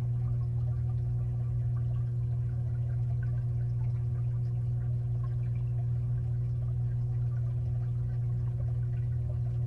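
Steady low hum of a 55-gallon aquarium's pump motor heard from inside the tank, with faint scattered crackles over it.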